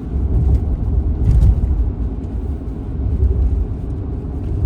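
Road noise inside a moving car: a steady low rumble of tyres and engine while driving on a snowy highway.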